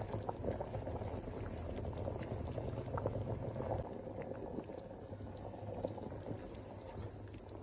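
Pot of oha soup bubbling at the boil: a continuous bubbling full of small pops and crackles, over a low steady hum.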